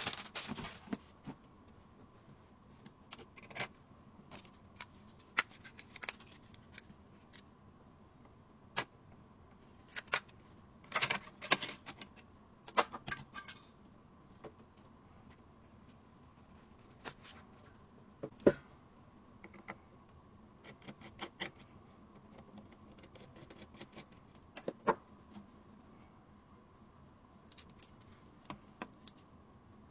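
Computer parts being handled during a PC build: scattered clicks, taps and light knocks at irregular intervals, loudest in a cluster about eleven to thirteen seconds in and one sharp knock a little past eighteen seconds. A faint steady hum sits underneath.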